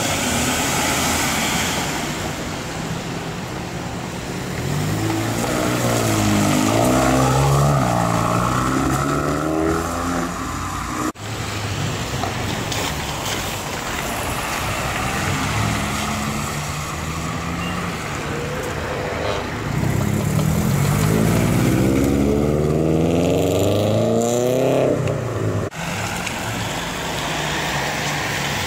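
Tuned cars pulling away on a wet road one after another, engines revving up hard in two rising accelerations, over a steady hiss.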